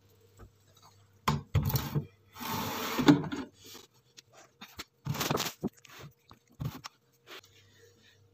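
Jars of olives being set down and slid into place on a cupboard shelf: a few knocks and several bouts of scraping, with a few small clicks near the end.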